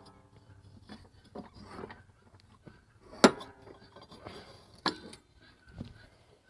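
Metal clinks and knocks of hand tools and parts being worked on a riding mower deck. The loudest is one sharp ringing clink about three seconds in, with fainter knocks and handling noise around it.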